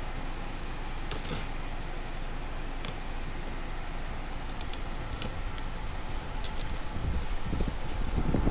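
A few short, light metallic clicks and clinks over a steady low hum, with some duller knocks near the end.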